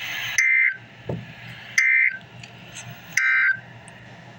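Emergency Alert System end-of-message signal: three short bursts of warbling digital data tones (SAME "NNNN"), evenly spaced about a second and a half apart. It marks the end of the alert broadcast.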